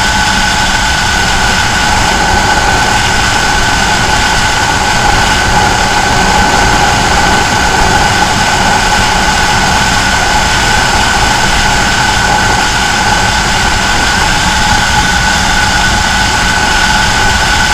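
Benelli 302R's 300 cc parallel-twin engine running at high revs in sixth gear at top speed, a steady unchanging drone. Heavy wind rush on the microphone runs underneath.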